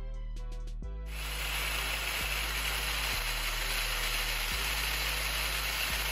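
Background music with a steady bass line, joined about a second in by a loud, even hiss that lasts to the end.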